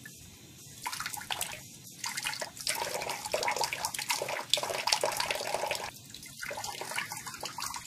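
Thin stream of tap water running into a bathroom sink, splashing unevenly as a cat pushes its face and paw into the flow. The splashing comes and goes, loudest in the middle.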